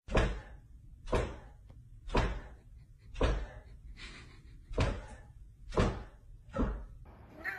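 Golden retriever's tail thumping on a hardwood floor as it wags while lying down: about seven heavy thumps, roughly one a second.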